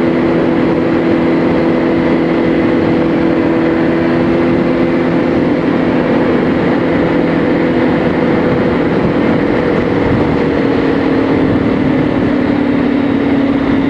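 Kawasaki ZX-10R's inline-four engine running at a steady cruise under a broad rush of wind and road noise, its pitch easing slightly lower in the last few seconds.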